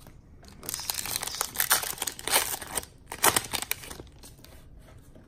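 A Panini Fortnite trading-card booster pack's plastic wrapper being torn open and crinkled by hand. The crackling starts about a second in and lasts about three seconds before dying away.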